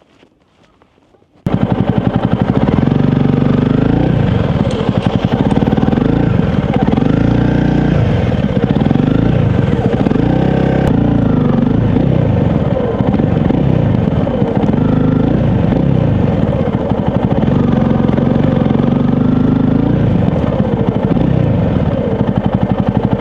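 Honda CRF250 Rally's single-cylinder engine, coming in suddenly about a second and a half in and then running loud, its pitch rising and falling again and again as it revs up and drops back.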